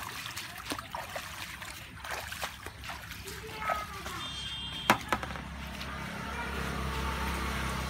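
Bare feet and hands splashing and sloshing through shallow muddy water among grass, in scattered small splashes, with one sharp loud splash about five seconds in. A steady low hum builds up over the last few seconds.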